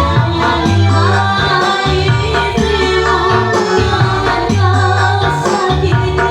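Band music playing a song, with a heavy repeating bass line, percussion and singing.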